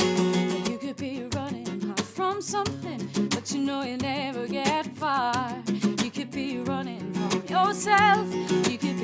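Acoustic song: a hard-strummed acoustic guitar with sharp percussive strokes, joined from about two seconds in by a voice singing a wordless line with wide vibrato.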